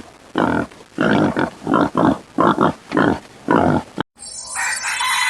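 Pig grunting, a series of about eight short grunts. Shortly after four seconds in it cuts off suddenly and a different, quieter background noise follows.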